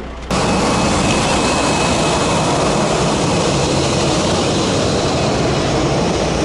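Jet airliner engines running on the airport apron: a loud, steady rush of engine noise with a faint high whine, cutting in abruptly just after the start.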